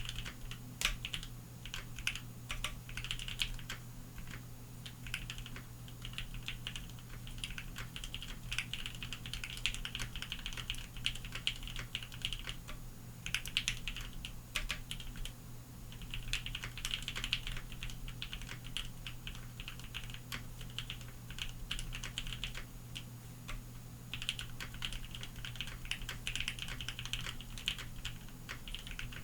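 Continuous typing on a Bakeneko60 mechanical keyboard fitted with Lavender switches: rapid runs of keystroke clacks, easing off briefly twice. A steady low hum runs underneath.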